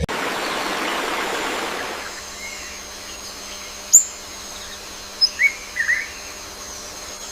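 Steady outdoor background noise, louder for the first two seconds, with a few short bird chirps: one sharp one about four seconds in, then a quick cluster of three or four between five and six seconds.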